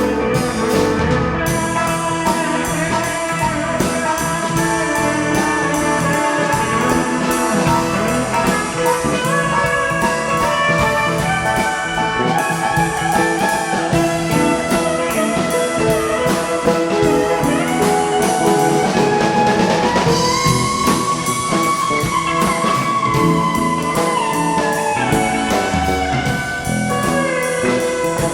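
A rock band playing an instrumental jam: guitar over a drum kit, with a lead line that slides up in pitch about two-thirds of the way through.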